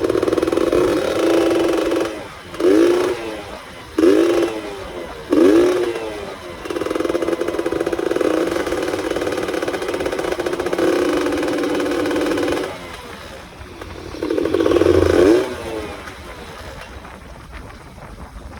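Yamaha F1ZR's two-stroke single-cylinder engine, in its 'ngorok' (snoring) exhaust setup, running with several short blips of the throttle and a steady stretch in the middle, dropping quieter near the end.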